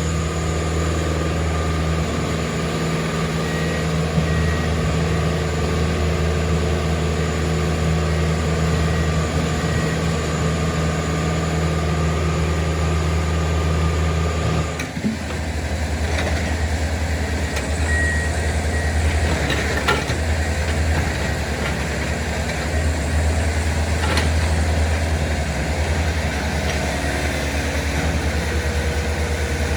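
Diesel engines of railroad track-maintenance machines running steadily, with a few sharp metallic knocks in the second half as the machines work the ties. The engine sound changes abruptly about halfway through.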